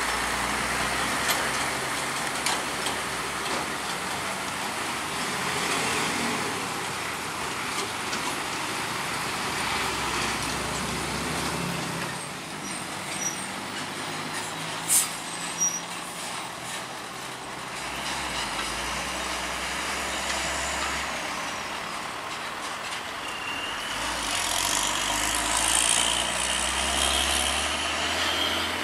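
Heavy Hino trucks running through a railway level crossing: diesel engines and tyre rumble swell and fade as each truck passes. A few sharp knocks come about halfway through, and a steady high whine joins in the last few seconds.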